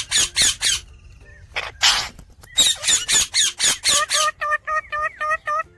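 Indian ringneck parrot giving rapid bursts of harsh squawks, then near the end a quick, even run of short pitched chirps, about five a second.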